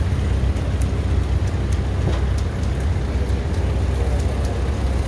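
An engine running steadily with an even low rumble, with a few faint clicks over it.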